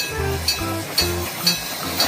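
Background music with a steady beat: bass notes and short percussion ticks, about two beats a second.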